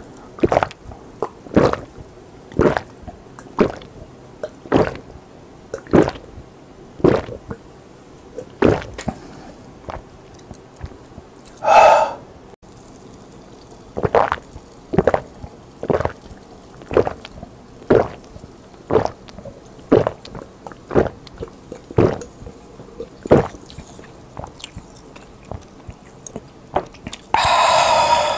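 A person gulping down a glass of soft drink in one go, close to a clip-on mic, with about one loud swallow a second. Then a second glass is downed the same way. A loud breath out follows each glass, about 12 s in and near the end.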